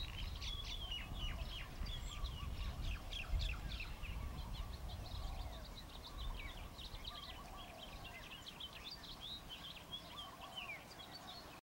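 Many small birds chirping and twittering in a continuous chorus of short high calls, over a low steady rumble.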